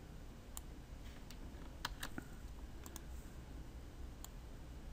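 Faint, scattered clicks of a computer mouse, about eight of them at irregular intervals, over a faint low steady hum.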